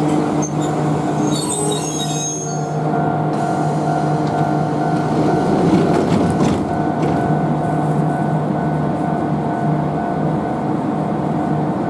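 Former Keio electric commuter train of the Choshi Electric Railway coming to a stop at the platform. A high squeal sounds as it slows in the first couple of seconds, then the standing train gives a steady electrical hum from its onboard equipment, with a brief rush of noise about halfway through.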